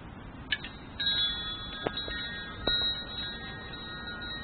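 Wind chimes ringing: several high chime tones sound together about a second in, are struck again a couple of times, and keep ringing.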